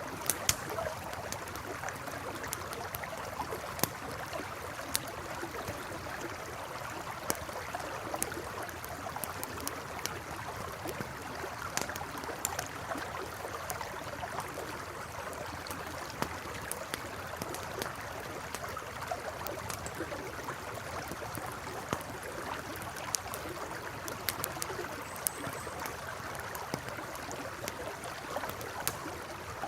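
A river flowing steadily, with a campfire crackling over it in sharp, irregular pops.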